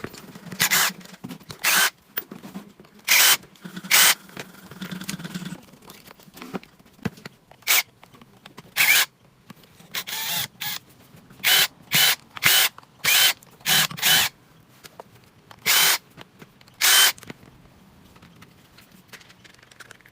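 An electric screwdriver running in short spurts, about sixteen brief whirs with pauses between, as screws are driven out of a brushless electric impact wrench's housing to take it apart.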